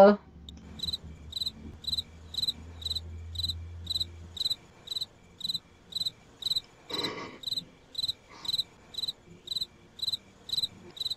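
Cricket chirping, a steady high chirp about twice a second: the stock 'crickets' sound effect for an awkward silence.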